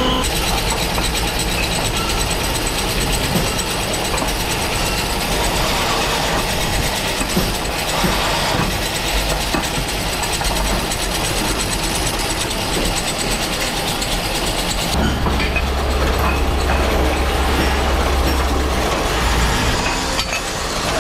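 Multi-spindle drilling machine running as it drills holes in cast aluminium motorcycle wheel hubs, with a steady mechanical whirr and rattle of metal parts. About three-quarters through, the sound changes to a pillar drill press with a stronger low hum.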